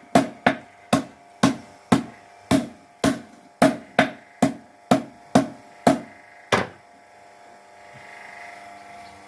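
Hammer blows on hot steel being forged, about fourteen strikes at roughly two a second, each with a short metallic ring, stopping about six and a half seconds in.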